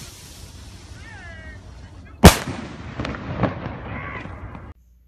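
Firework rocket's launch hiss trailing off, then its burst goes off with one sharp, loud bang a little over two seconds in. A few fainter cracks and pops follow, and the sound cuts off near the end.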